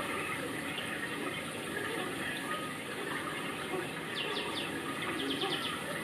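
Steady rushing noise like running water, with a small bird giving two quick runs of high, falling chirps about four and five seconds in.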